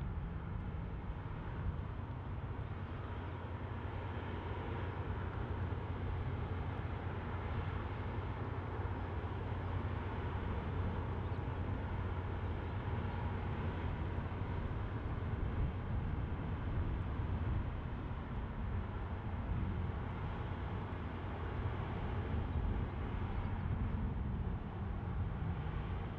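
Steady low rumble of distant engines in port traffic, an even drone with no distinct events.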